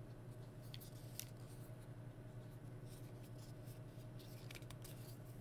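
Faint scattered clicks and light scrapes as a small plastic electric lighter and its USB charging cord are handled, over a steady low hum.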